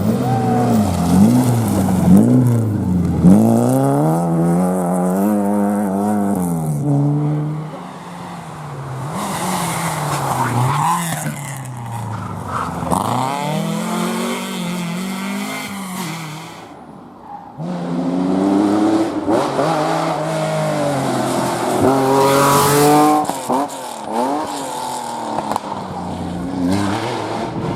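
Historic rally car engines revving hard under full acceleration, the pitch climbing and dropping again and again with gear changes. Three separate runs follow one another, split by short lulls about 8 and 17 seconds in.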